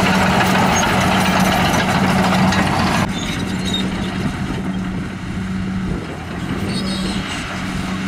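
HBXG crawler bulldozer's diesel engine running under load with a steady note as the blade pushes dirt. About three seconds in, the sound drops suddenly to a quieter, less rough engine run.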